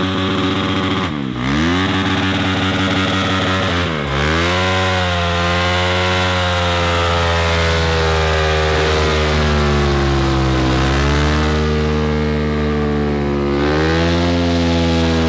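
Dirt bike engine held at high revs during a burnout, the rear tyre spinning on concrete. The revs dip and climb back twice in the first few seconds, then hold steady.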